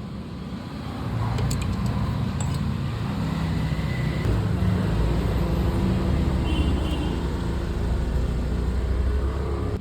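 Motorcycle engine running steadily, getting louder about a second in.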